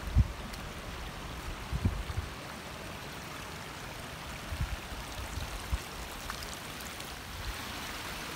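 Shallow rocky creek running over stones, a steady rush of water. A few dull low thumps break in, the loudest just after the start and others around two seconds in and midway.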